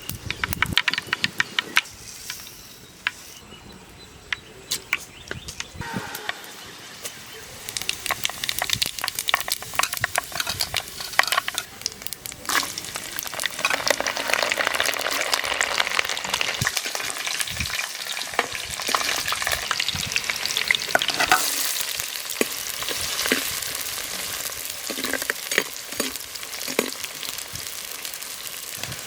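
Food frying and sizzling in hot oil in a pan, stirred with a utensil that scrapes and taps against the pan many times. The sizzle grows louder about halfway through.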